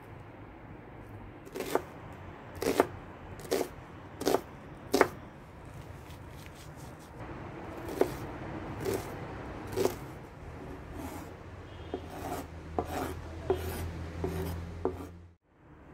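Chef's knife chopping and dicing an onion on a wooden cutting board: irregular sharp knocks of the blade striking the board, with soft slicing scrapes between them. A low steady hum sits underneath in the second half, and the sound cuts off abruptly near the end.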